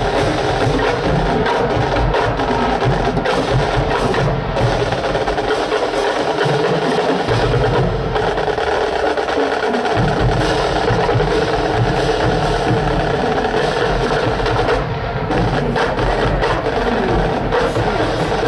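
Marching band drumline playing a steady marching cadence on snare, tenor and bass drums, with sharp stick and rim clicks. The low bass drum hits drop out for a few seconds midway, then come back in.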